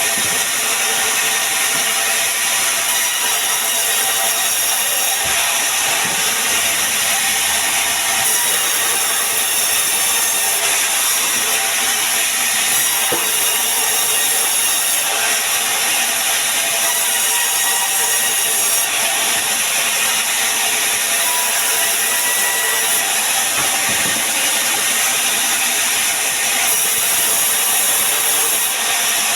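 Power saw running steadily as it cuts through pine wood.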